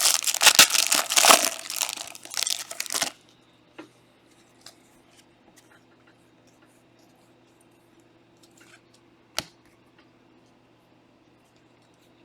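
Foil trading-card pack wrapper being torn open and crinkled for about three seconds, followed by faint handling taps and one sharp click a few seconds before the end.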